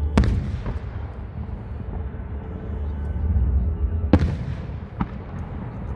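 Aerial firework shells bursting: a loud bang just after the start and another about four seconds in, each trailing off in an echoing rumble, with fainter cracks between and near the end, over a steady low rumble.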